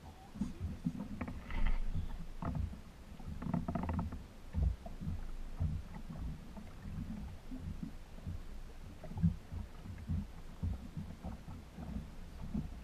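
Water knocking and slapping against a small boat's hull, heard as low, irregular thumps and rumble, with a couple of brief higher sounds about two and four seconds in.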